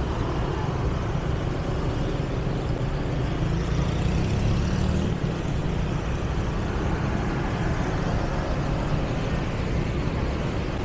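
Steady city street traffic noise with a constant low rumble.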